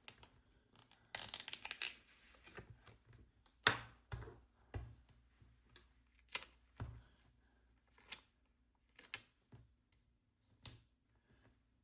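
Sticker sheets and planner pages being handled: a brief paper rustle about a second in, then scattered light clicks and taps.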